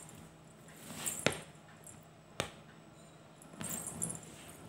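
Faint handling sounds of an aari needle and silk thread on stretched fabric while the stitching is tied off with a knot: two sharp ticks about a second apart, then a soft rustle near the end.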